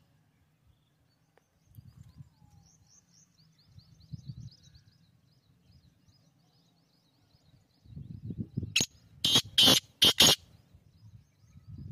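Black francolin calling: four short, loud notes close together about nine seconds in, with faint high chirping before them and an intermittent low rumble.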